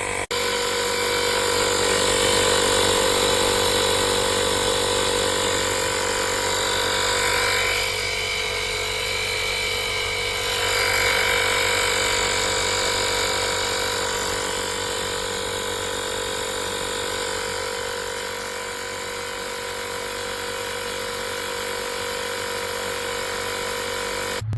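Fanttik X8 APEX cordless tire inflator's compressor running steadily, a continuous mechanical buzz.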